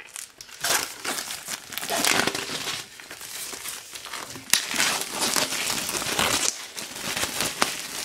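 Plastic shrink-wrap being peeled and pulled off a boxed book edition by hand, crinkling and crackling irregularly, with one sharp snap about four and a half seconds in.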